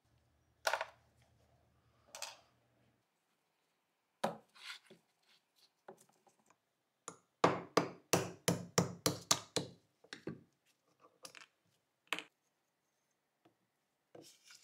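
Rusty Colt Model 1903 pistol parts clicking and knocking as they are taken apart on a bench. A few single sharp knocks come first, then a quick run of about ten taps in the middle, at roughly four a second.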